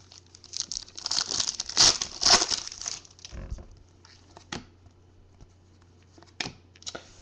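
A trading-card pack wrapper being crinkled and torn open for about two seconds, then a few soft clicks and slides of cards being flipped through by hand.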